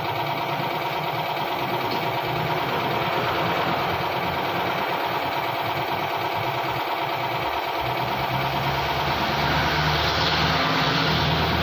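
Steady hiss of a hose-fed paint spray gun laying clear coat on car panels, over the steady hum of a running motor; both grow louder near the end.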